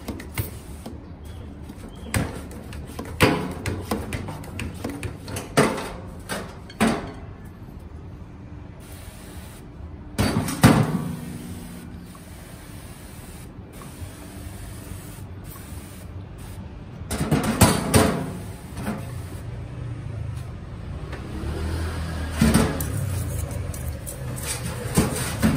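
Hand pump-up sprayer being pumped and spraying cleaner over a motorcycle steering stem and lower triple clamp in a stainless steel sink, with scattered knocks and clanks of the metal parts against the sink. Near the end, a brush scrubs the clamp.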